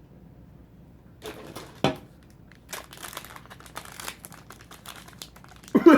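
Crinkling and tearing of a Dice Masters foil booster pack being opened by hand, in irregular crackly bursts with a sharper rip about two seconds in.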